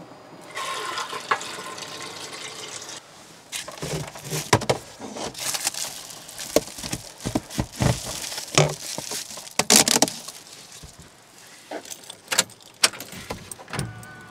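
Water runs from the camper sink's faucet for about two and a half seconds. It is followed by a long run of irregular clattering, rattling and rustling as the flexible plastic exhaust duct of a portable air conditioner is pulled off and handled.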